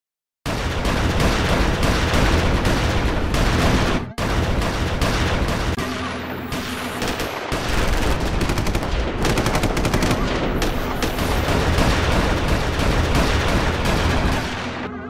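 Added battle sound effects: dense machine-gun fire and gunshots over a heavy low rumble, with a rapid, even burst of shots near the middle.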